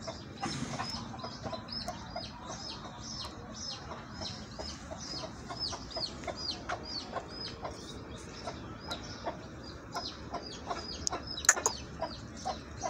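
Birds chirping: short high chirps, each falling in pitch, repeating about three times a second. One sharp click stands out about three-quarters of the way through.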